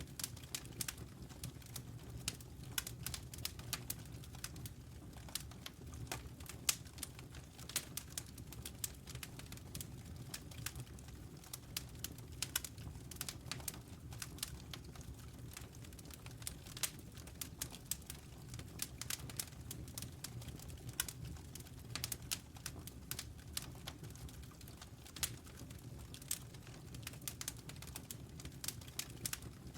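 Wood fire crackling, with many irregular sharp pops and snaps over a low, steady rumble.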